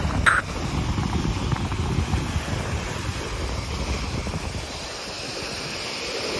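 Wind buffeting the microphone over small waves breaking and washing up the sand; the wind noise eases about two-thirds of the way through as the wash grows. A brief click just after the start.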